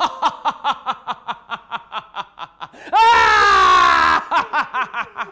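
One person's loud staccato laughter, a rapid run of 'ha-ha-ha' pulses about seven a second, broken about three seconds in by a long drawn-out cry, then laughing again.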